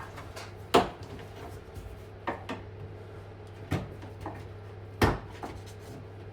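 Four sharp clicks and knocks, with a few fainter taps between, from hands and tools handling a car's door trim pieces. A steady low hum runs underneath.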